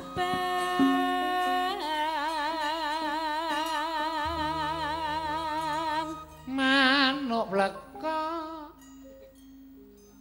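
A pesinden, a female Javanese singer, sings long held notes with a wide, wavering vibrato over gamelan accompaniment. A deep low note comes in about four seconds in; the singing stops near the end, leaving soft gamelan notes.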